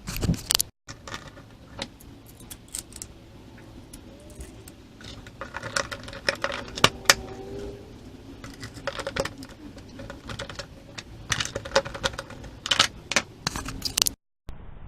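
Small metal hardware clinking and rattling: bolts, lock nuts and tools on the rod-holder mounting plate, with irregular sharp clicks and jingles as the hardware is fastened.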